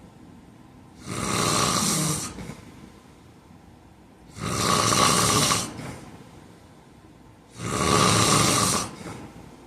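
A man snoring in his sleep, with three loud snores in a steady rhythm about three seconds apart.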